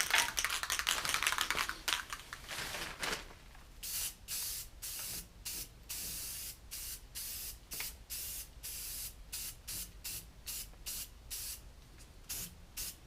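Aerosol spray-paint can spraying in short repeated bursts, about two to three a second, each a sharp hiss, after a few seconds of denser continuous hissing at the start.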